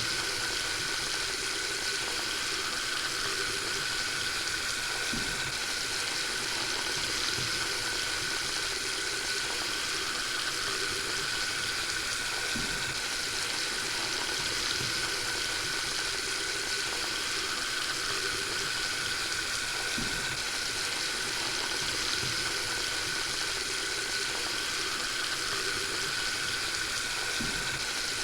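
Water tap running steadily into a sink, an even, unbroken rush of water.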